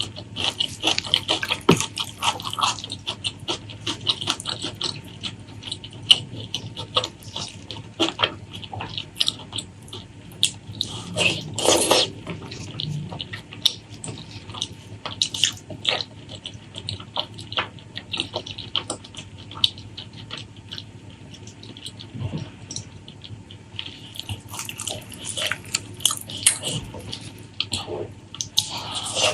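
Close-miked wet chewing and lip smacking of a person eating, a dense run of short sticky clicks, a little sparser in the middle.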